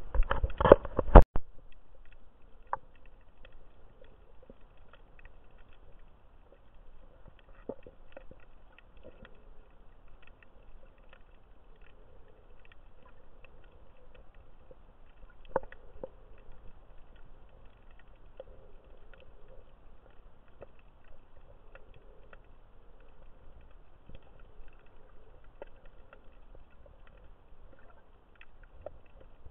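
Underwater sound picked up by a camera held below the surface: a loud muffled rush with a sharp knock in the first second or so, then a low steady hiss with scattered faint clicks and crackles.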